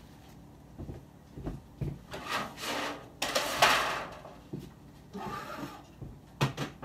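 Things being handled: soft rubbing and rustling that swells for about two seconds in the middle, then a couple of sharp knocks near the end.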